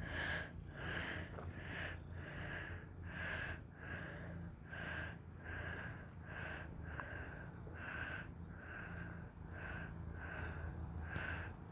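Heavy nasal breathing close to the microphone, each breath carrying a faint whistle, repeating evenly about one and a half times a second, over a low steady purr from a Russian Blue cat kneading.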